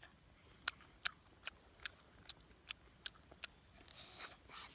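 A person eating roasted duck up close: wet smacking chews and bites, a run of sharp mouth clicks about two to three times a second, with a short rustle about four seconds in.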